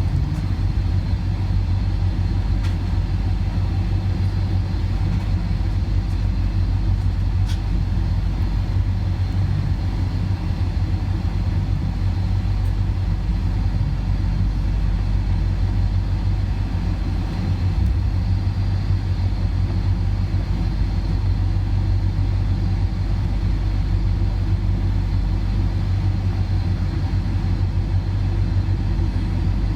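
Boeing 747-400 cabin noise while taxiing after landing: a steady, loud low rumble and hum from the idling engines and airframe, heard from inside the cabin.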